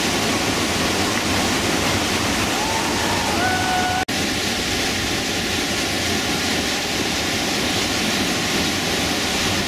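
Whitewater rapid rushing in a steady, loud wash of water noise, with a few faint short high calls a few seconds in and a brief sudden cut-out in the sound about four seconds in.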